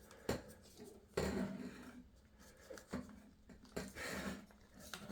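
Hard plastic vacuum-hose parts being handled and pushed together: a series of separate clicks and knocks with some rattling, the loudest just over a second in.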